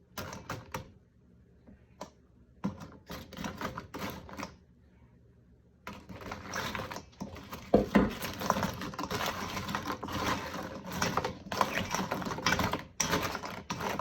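Crisp fried taraegwa pastries being tossed and stirred in honey in a bowl: irregular light clicking and rattling. A few separate clicks at first, then nearly continuous from about six seconds in.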